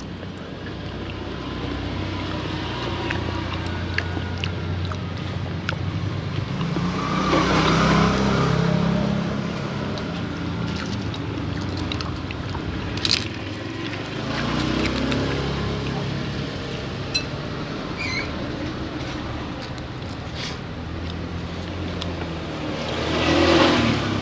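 Road traffic beside a street stall: a steady low rumble, with vehicles passing close by about seven seconds in, again more faintly around fifteen seconds, and loudest near the end. A single sharp click about thirteen seconds in.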